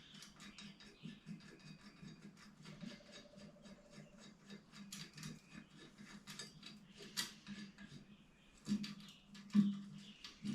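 Small metal bicycle bottom-bracket parts, bearing and cup, being handled and fitted by hand: a run of light clicks and ticks, with a couple of louder knocks near the end, over a steady low hum.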